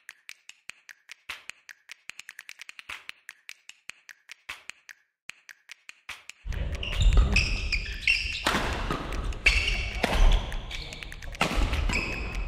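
Badminton doubles rally on a wooden gym floor: racket strikes on the shuttlecock, sneakers squeaking and footsteps thudding. For the first half it is faint, scattered ticks, then it turns much louder and busier about halfway through.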